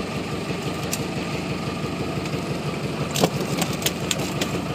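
Boat engine running steadily at idle with a quick, even pulsing. About three seconds in comes a sharp knock, followed by a few quick clicks.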